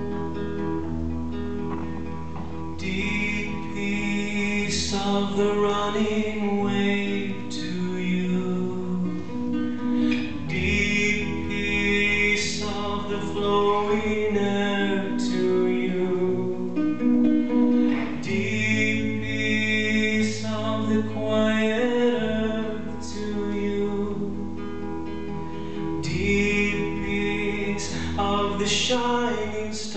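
Acoustic guitar strummed and picked in a slow song, with a voice singing a long, bending melody over it.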